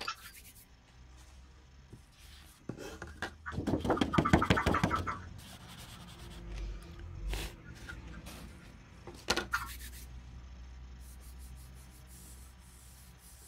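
Rustling and rubbing of drawing paper being handled while a finger blends soft pastel on it, with a louder crackly burst about four seconds in and a shorter one about nine seconds in, over a low steady hum.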